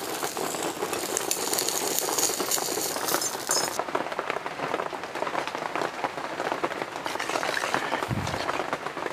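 Curry leaves sizzling and crackling in hot oil with popped mustard seeds in an iron pan. The sizzle drops away sharply about four seconds in, leaving a fainter crackle.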